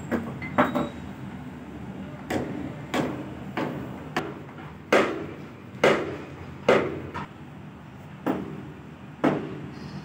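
Brass test sieve knocked and shaken against an aluminium tray during hand sieving of plaster sand: about a dozen sharp metallic knocks at uneven intervals, each ringing briefly.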